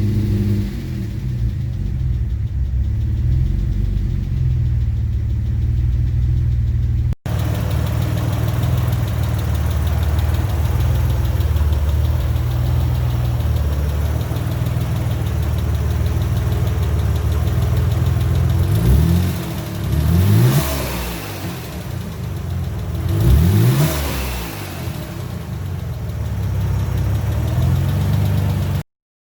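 1994 Mitsubishi 3000GT VR-4's freshly built twin-turbo 3.0 L V6 running at a steady idle during its break-in, then revved briefly twice in the second half, the pitch rising and falling each time.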